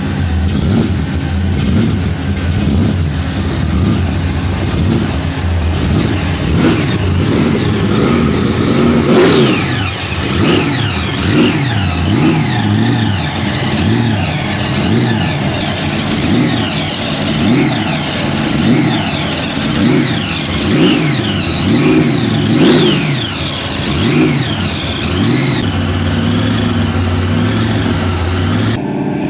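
V8 engine running at a steady idle, then revved again and again in quick blips, its pitch rising and falling about once a second. It settles back to a steady run near the end.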